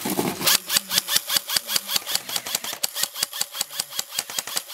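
Airsoft rifles firing a long string of rapid shots, an even run of sharp clacks at about eight a second that starts about half a second in.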